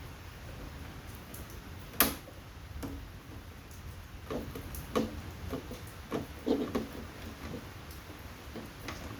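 Scattered knocks and clicks of air-conditioner parts being handled and pulled apart by hand, with one sharp knock about two seconds in the loudest, and more frequent clunks in the second half.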